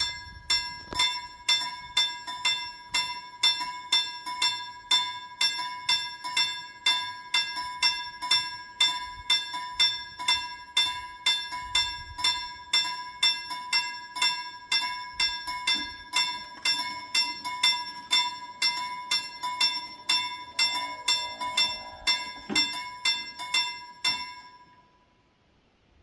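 Swedish level-crossing warning bell striking about twice a second, warning of an approaching train. It stops about 24 seconds in, as the barrier arms come down.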